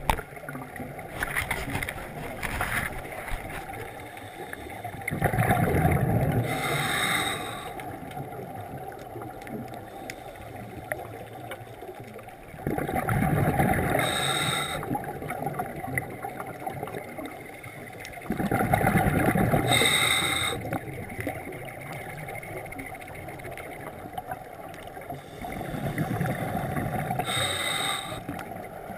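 Scuba regulator breathing heard underwater: four bursts of rumbling exhaled bubbles, about every six to seven seconds, each ending in a brief higher-pitched hiss, over a steady watery background.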